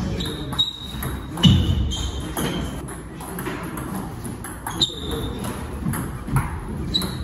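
Table tennis rally: the ball clicks off the rackets and the table at an uneven pace, about ten hits, with short high squeaks now and then and low thuds of footwork.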